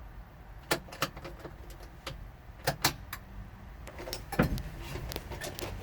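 Sharp, scattered clicks in the cab of a stalled Kubota L4330 tractor as a start is tried, with a faint low hum coming in partway through. No engine running or starter cranking is heard: the tractor does not start.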